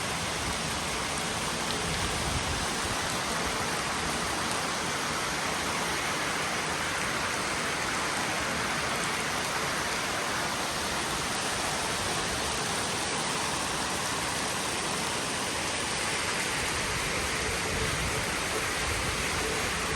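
Steady rainfall, an even hiss of rain coming down and hitting surfaces; the first rain of the year.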